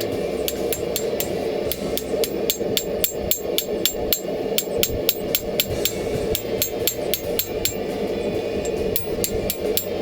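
Hand hammer striking hot carbon steel on an anvil in a steady run of ringing blows, about three a second, drawing out the steel of an old pickaxe head. A steady hum runs underneath.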